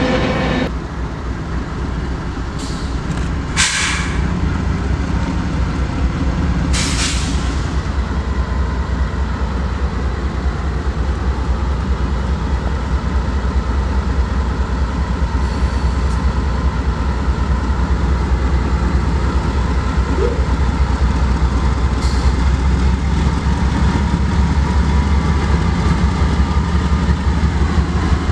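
GE Dash-9 diesel-electric freight locomotive approaching at track speed: a deep, steady engine rumble that grows slowly louder, with two short hissing bursts about 4 and 7 seconds in.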